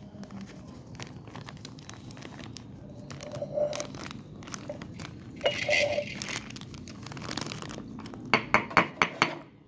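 Plastic spice packet crinkling and rustling while ground coriander is poured from it into a glass jar. Near the end, a quick run of five sharp knocks as the jar is handled.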